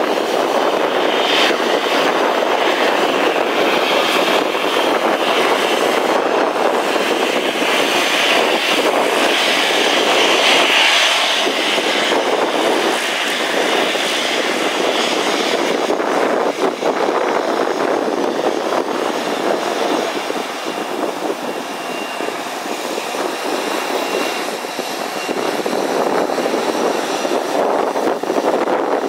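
Jet engines of an Airbus A320-214 (CFM56 turbofans) running at high power for takeoff: a loud, steady rush with a hissing upper band that stands out over the first half and a slight easing past the middle.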